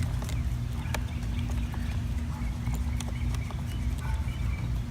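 Scattered light clicks and taps of an Allen wrench and motorcycle fairing plastics being worked loose, over a steady low background hum that stops about four seconds in.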